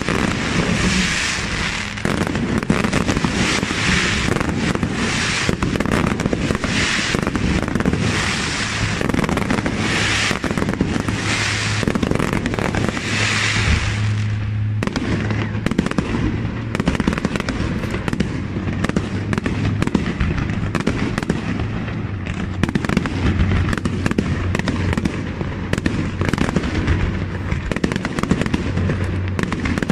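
Aerial fireworks display: a continuous barrage of shell bursts and launches. Through roughly the first half, dense crackling and hissing swells ride on the bangs; from about halfway the crackle thins and separate sharp bangs dominate.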